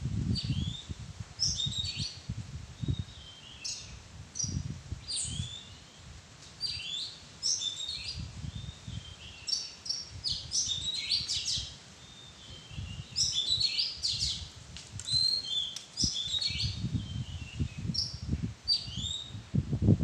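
Oriental magpie-robin singing: a long, varied run of clear whistled phrases, many notes sliding up or down, with short pauses between them. A low rumbling noise runs underneath.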